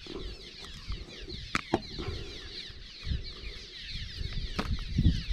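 A flock of small birds chattering without a break, many quick overlapping chirps. A few sharp clicks and low thumps come through it, loudest about five seconds in.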